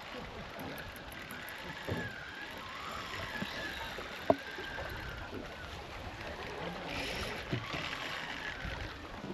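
Water and wind noise around a boat on a river, with a single sharp knock about four seconds in.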